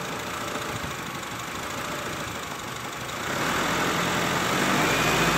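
Honda Civic engine running in reverse against the brakes, its note changing under a little throttle, then settling back to a steady idle about three seconds in. The engine has a knock that the owner puts down to a bad connecting rod.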